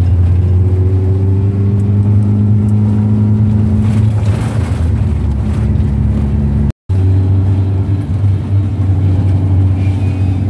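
Motorhome engine running under way, heard from inside the cab: a steady low drone with road noise, its pitch edging up a little in the first few seconds. The sound cuts out for a moment about seven seconds in.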